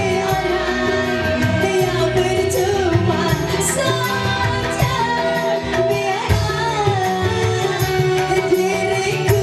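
Live dangdut music: a woman singing into a microphone over electric keyboard and hand drums, with held, bending melody notes over a steady drum beat.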